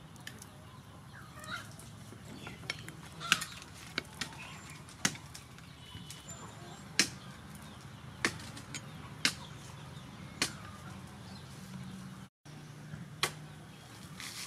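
Scattered sharp clicks of a metal spoon knocking against a ceramic plate while fried fish is broken apart by hand, about eight in all, with chickens clucking faintly in the background.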